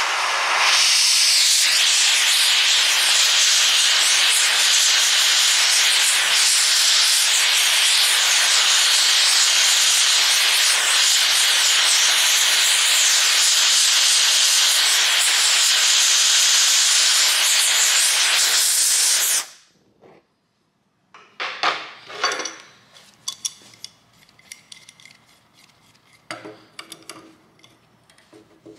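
Gas torch flame hissing steadily as it heats a rusted nut, then cutting off suddenly about two-thirds of the way through. Light metallic clinks follow as hand tools are fitted to the nut.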